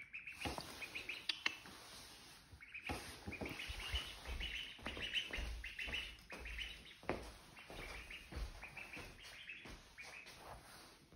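Ducklings peeping, a fast string of short high-pitched peeps that runs on with hardly a break, with a few sharp taps mixed in.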